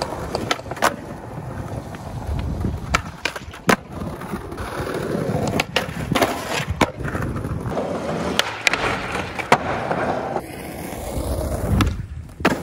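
Skateboard wheels rolling on hard paving, broken by sharp clacks of the board popping and landing about eight times, with the board scraping on a concrete ledge in the middle.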